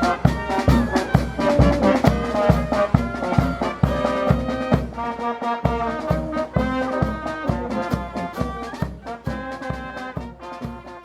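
Brass music, trombones and trumpets over a steady drum beat, gradually fading out toward the end.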